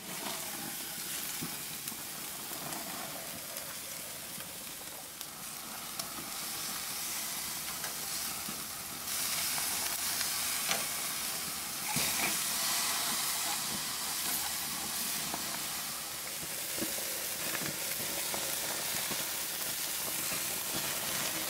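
Pork belly strips, a steak and chicken skewers sizzling on the grates of a Weber gas grill. The steady hiss jumps up as the lid is lifted at the start and grows louder about 9 and 12 seconds in, with a few light clicks of metal tongs against the meat and grate.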